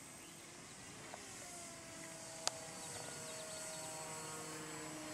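Parkzone T-28 RC plane's electric motor and propeller giving a faint, steady hum with a few pitched tones, slowly growing louder as it flies. A single sharp click comes about two and a half seconds in.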